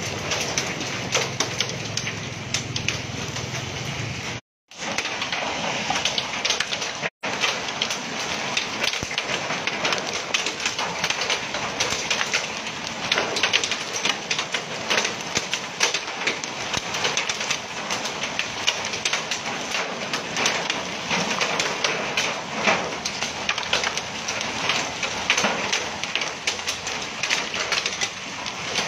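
Heavy rain mixed with hail pelting a wet paved street: a dense, steady patter of many small sharp impacts. A low drone sits under it for the first few seconds, and the sound cuts out briefly twice, around four and a half and seven seconds in.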